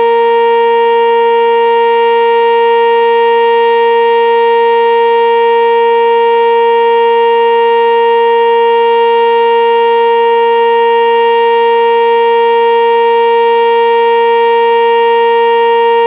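Sentry 10V2T dual-tone outdoor warning siren sounding its steady alert signal, loud and holding one unchanging pitch throughout, as used for a monthly tornado-siren test.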